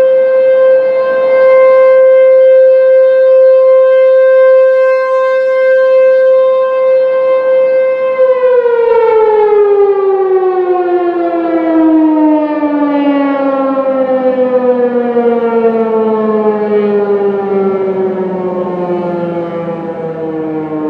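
ASC T-128 outdoor warning siren sounding a steady single tone, then about eight seconds in its pitch begins falling slowly and continuously as it winds down at the end of the test signal.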